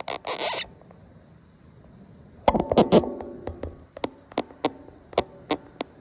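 Handling noise from a handheld smartphone: a brief rustle, then an irregular run of sharp clicks and taps, some with a short ringing after them.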